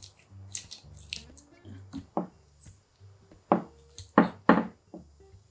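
Gloved hands pressing sticky rice over a seaweed sheet, making soft squishing sounds. Later come a few sharp handling sounds as fillings are picked up and laid on the rice.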